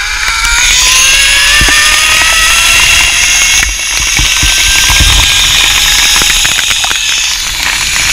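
Zipline trolley pulleys whining along the steel cable, the pitch climbing for the first few seconds as speed builds and then holding steady, over a loud rushing hiss.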